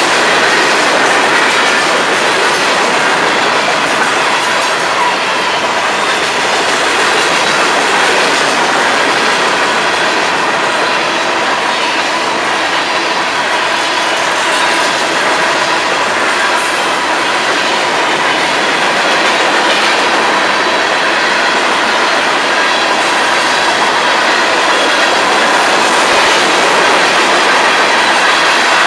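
Freight cars of a Florida East Coast Railway train rolling steadily past: continuous rumble and clickety-clack of steel wheels on the rails, with a thin steady high tone running over it.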